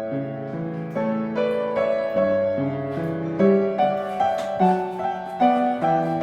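Background music: solo piano playing a gentle melody over chords, the notes struck and left to ring.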